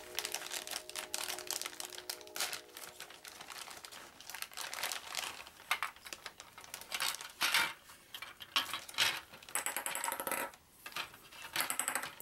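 Clear plastic bag crinkling and rustling irregularly as it is opened and handled, with light clicks of the hollow plastic game balls knocking together as they shift out of the bag.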